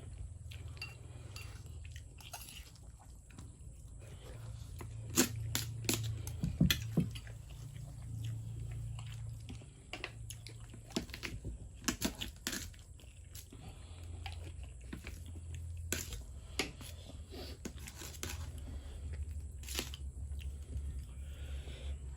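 A person eating fried noodles close to the microphone: irregular chewing, smacking and crunchy mouth clicks, some sharper ones scattered through, over a steady low hum.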